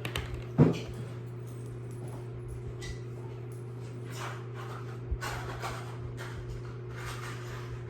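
A steady low electrical hum, with a short sharp click about half a second in and a person breathing audibly three times, about a second and a half apart, in the second half.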